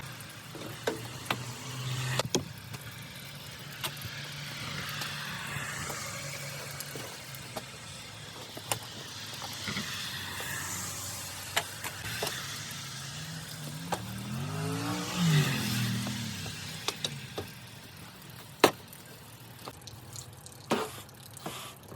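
A vehicle engine running steadily, its pitch rising and then falling once about two-thirds of the way through, with scattered clicks and a scratchy scraping noise over it.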